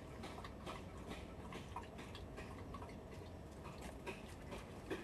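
Faint, irregular light clicks and ticks over a low steady hum.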